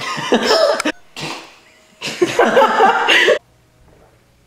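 A person's voice in two loud wordless outbursts, the first about a second long and the second about a second and a half long.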